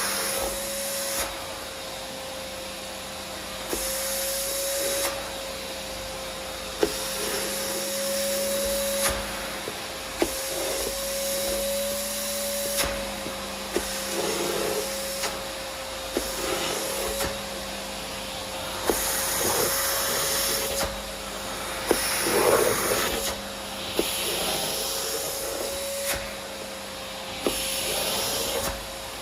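Vacuum cleaner running steadily, its motor hum constant while the suction hiss swells and drops every second or two as the nozzle is worked back and forth. Scattered sharp clicks sound through it.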